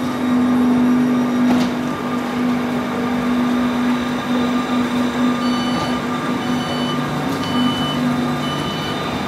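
Class 460 electric multiple unit (Siemens Desiro ML) pulling out of the station at low speed, its drive giving a steady low hum. In the second half there are four short high beeps about a second apart.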